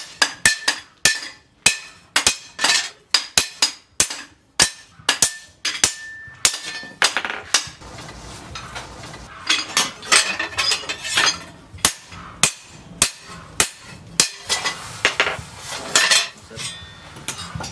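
Hand hammer beating a steel knife blank cut from a tractor disc plough, over a steel post anvil. The blows come about two a second, each with a short metallic ring. After about seven seconds they become irregular.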